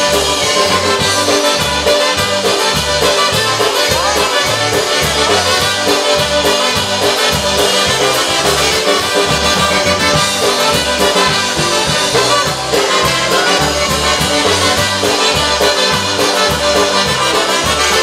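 Live polka band playing an instrumental break. Two trumpets carry the melody over accordion, and a bass guitar pumps a steady oom-pah beat.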